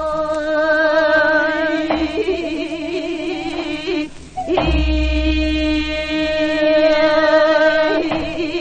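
A woman sings jireum sijo, Korean classical sung poetry, holding long, slow notes with a wavering vibrato. She breaks off for a breath about four seconds in, then holds the next note. The recording comes from an old Victor gramophone record.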